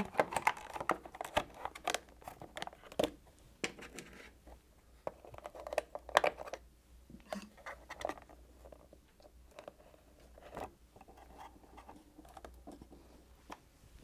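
Plastic hinge cover on a Samsung fridge freezer door being handled and pressed down over the hinge wiring: scattered clicks and scrapes of plastic on plastic, busiest in the first half. Fainter ticks and scrapes follow as a screwdriver drives in the cover's screw.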